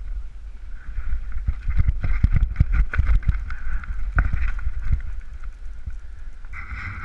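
Mountain bike clattering down a rough forest trail, with knocks over roots and rocks. Heavy wind rumble on the microphone, and a high whine that comes and goes, strongest near the end.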